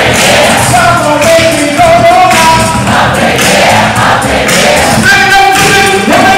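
Music with singing voices: held, sliding sung notes over a full backing.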